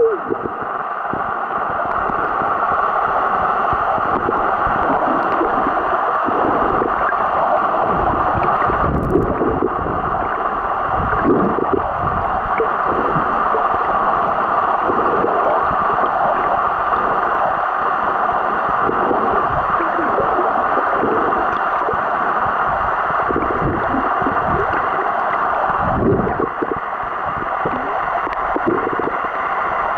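Underwater sound picked up by a camera below the surface: a steady, muffled rush of water with irregular low gurgles.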